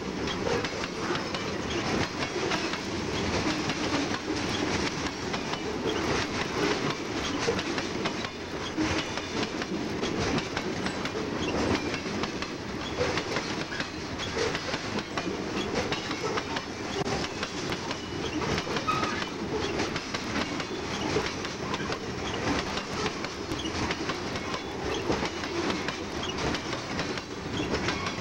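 Freight train's tank cars and covered hopper cars rolling past close by: a steady rumble of steel wheels on the rails with constant clattering clicks.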